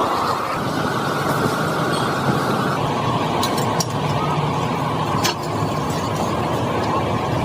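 Steady machine noise that drops slightly in pitch about 3 s in, with a few sharp metallic clicks.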